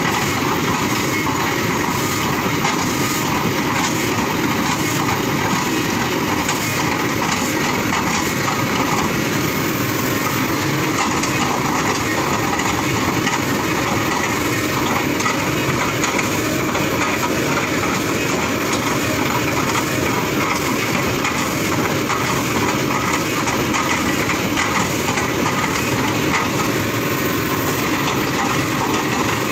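Kobelco hydraulic excavator running steadily under load, its engine and hydraulics working, with a continuous rapid clatter.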